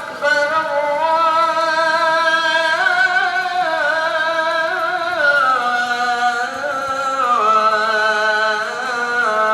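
A single voice singing or chanting long, held notes, ornamented with wavering turns and gliding slowly from one pitch to the next.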